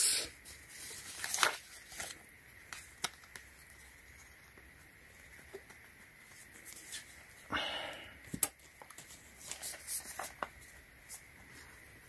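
Scissors nicking and scraping at the sealed edge of a small cardboard box: scattered small clicks and scrapes, with a short rustle of wrapping a little past halfway.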